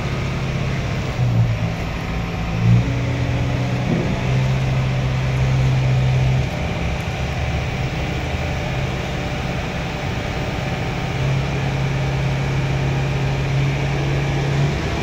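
Diesel engine of a truck-mounted crane running under load while it holds a wheel loader aloft, its pitch and level stepping up and down several times. Two brief knocks sound in the first three seconds.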